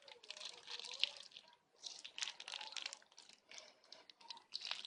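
White glue being poured and squeezed from its plastic bottle into a plastic cup, making irregular wet, scratchy sounds in bursts.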